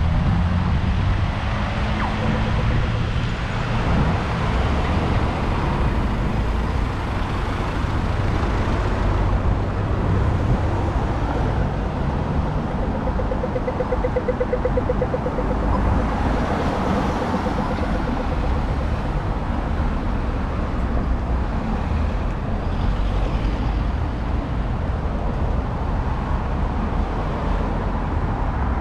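Road traffic passing on a street: a steady, continuous rumble of cars and trucks.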